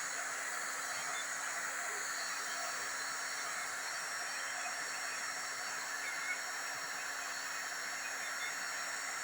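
Hot-air plastic welding gun blowing steadily, an even hiss with a faint low hum from its blower.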